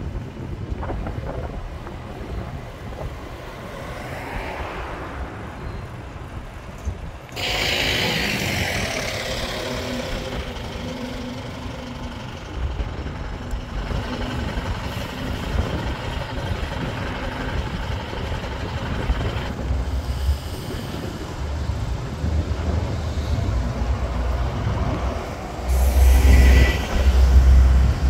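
Bus engines running at a stand. About seven seconds in there is a sudden loud hiss of air from the air brakes releasing as a single-decker bus moves off. Near the end a double-decker bus draws up close with a loud, deep engine rumble.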